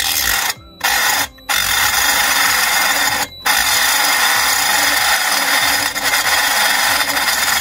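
SPTA 18W mini rotary tool with a small cutting disc cutting into a metal tin can: a loud, harsh grinding hiss that breaks off briefly three times in the first few seconds as the disc comes off the metal.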